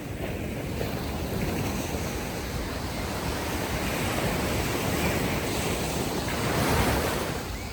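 Ocean waves washing ashore on a beach: a steady surf wash that swells to its loudest as a wave breaks near the end.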